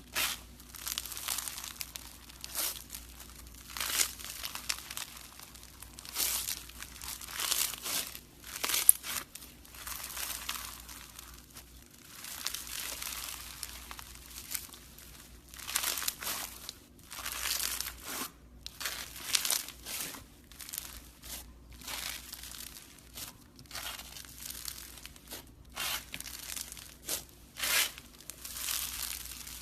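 Hands squeezing and stretching slime, giving irregular crackling bursts with short sharp snaps in between.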